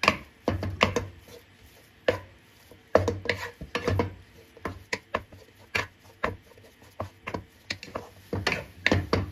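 A spatula stirring and pressing a thick choux dough in a pan, knocking and scraping against the pan in irregular strokes about once or twice a second. This is the dough being cooked out over very low heat.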